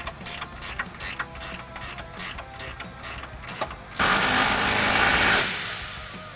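A ratchet wrench clicking quickly and evenly as it runs a nut onto a shock absorber's upper mount. About four seconds in, a power tool whirrs loudly for a second and a half and snugs the nut down, then dies away.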